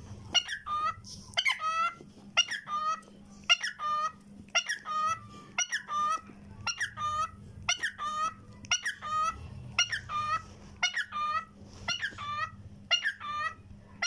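Cockatiel singing, repeating a short warbling phrase of quick sliding whistled notes, one or two phrases a second.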